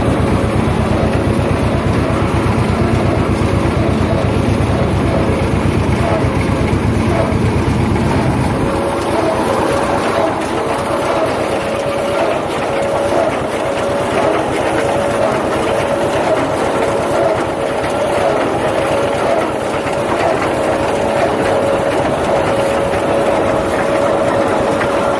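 John Deere 630 two-cylinder tractor engine running steadily under load while a John Deere 14T square baler picks up and packs hay, its pickup and plunger clattering along. About nine seconds in the deep engine rumble drops away, leaving a steady whine over the baler clatter.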